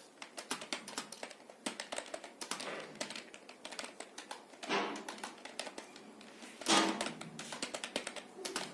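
Computer keyboard keys being typed steadily during a touch-typing test, a quick irregular run of clicks several to the second. Two louder brief noises stand out, about five and seven seconds in.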